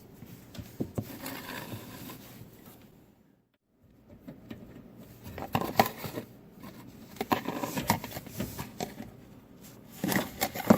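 Handling noise from working on a dishwasher's water-line connection under the cabinet: scattered clicks, light knocks and scrapes of tools and fittings, broken by a brief drop to near silence a little over three seconds in.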